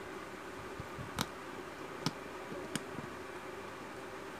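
Three sharp little clicks as fingers handle an opened Nokia 2 smartphone's battery and board, over a steady low hum.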